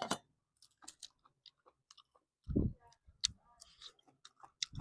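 Close-up chewing and biting of juicy fresh pineapple, a run of small wet clicks and crunches, with a louder low thud about two and a half seconds in.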